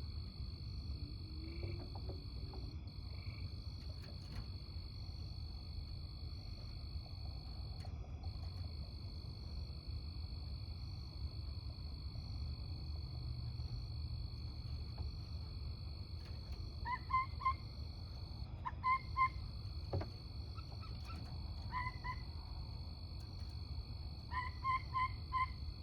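An unidentified animal giving short, pitched yipping calls in quick runs of three or four, repeated several times from about two-thirds of the way in, over a steady high-pitched drone.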